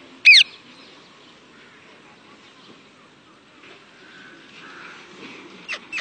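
Parakeet giving one loud, harsh screech that slides downward, shortly after the start, then two short sharp calls near the end.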